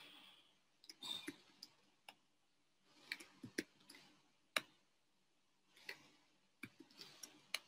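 Faint clicking of computer keyboard keys, in short runs of keystrokes as numbers are typed, with one sharper click in the middle.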